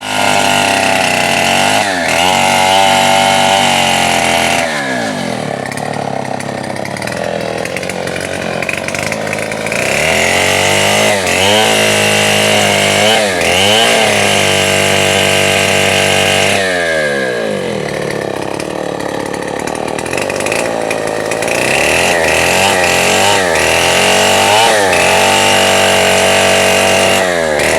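Two-stroke chainsaw engine running at high revs, its pitch repeatedly sagging and recovering. It drops to a lower speed for two longer stretches, about five seconds in and again past the midpoint.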